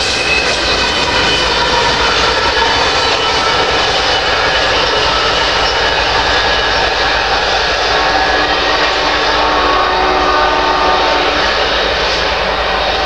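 Freight train rolling past: a steady rush of steel wheels on rail from covered grain hopper cars, with faint high squealing tones. About six seconds in, the diesel locomotive at the rear of the train passes, and its engine adds a low drone.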